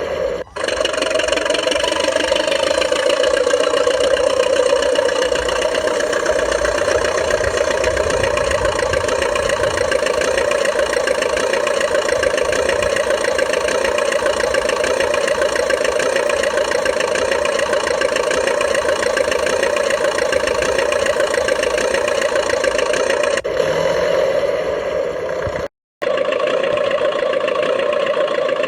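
RC model DT-54 crawler bulldozer running under load in snow: a steady engine-like mechanical drone. It breaks off briefly about half a second in and again about 26 seconds in.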